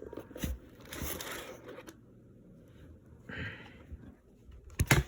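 Graphics card packaging being handled and opened: soft rustling and scraping, with a few sharp clicks and knocks near the end.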